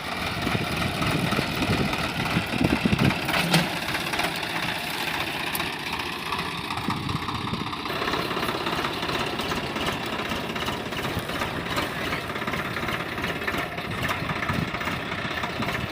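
Diesel engine of an XCMG XE80C excavator running steadily, getting louder for a moment about two to four seconds in.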